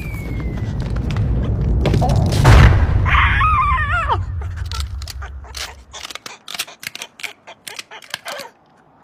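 Cartoon sound effects: a deep rumble that builds to a loud peak and then fades, with a short falling whistle near the start. A warbling squawk from the cartoon bird falls away about three to four seconds in. The rumble is followed by a rapid patter of short clicks and taps.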